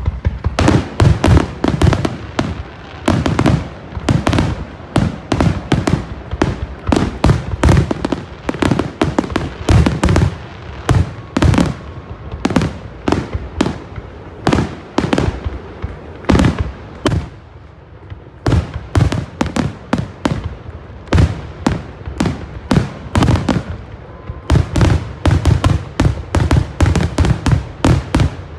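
Fireworks finale: aerial shells bursting in rapid, overlapping volleys, several loud booms and cracks a second with hardly a gap, easing briefly for a moment past the middle before building again.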